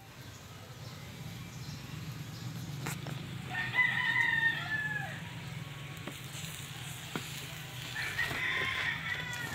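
A rooster crowing twice, each crow about a second and a half long and dropping in pitch at its end, over a steady low hum.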